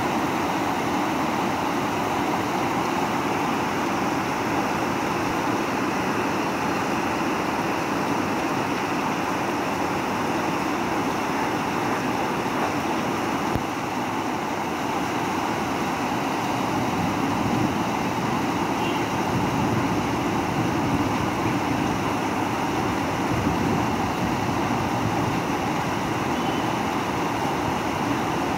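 Steady rain falling, an even hiss that holds unbroken throughout.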